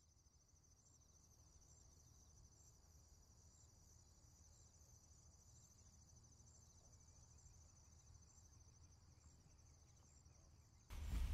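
Faint ambience of insects chirping, a steady high trill with a low hum beneath. Just before the end a sudden, much louder noise breaks in.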